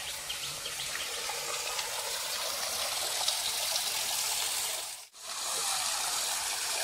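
Spring water pouring from a stone spout into a stone trough: a steady splashing and gushing that cuts out briefly about five seconds in.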